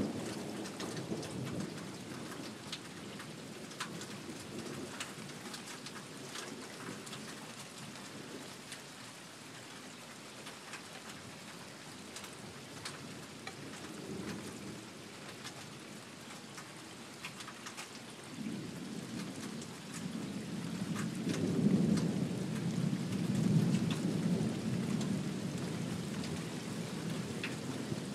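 Thunderstorm: steady rain with drops ticking close by, under rolling thunder. A rumble fades over the first few seconds, and a louder, long roll of thunder builds from about two-thirds of the way in.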